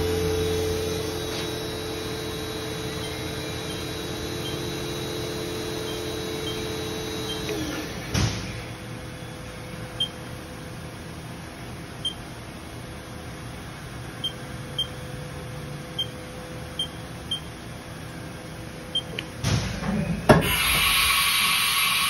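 Haas VF-0 CNC mill's spindle running at about 3,500 rpm with a steady multi-tone hum, shutting down about eight seconds in with a clunk. Quieter machine background with light ticking follows, then near the end a few clunks and a loud steady hiss as the umbrella tool changer swings in for a tool change.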